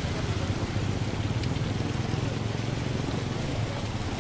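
Floodwater rushing and splashing along a street, with a motorcycle engine running as the bike rides through the water.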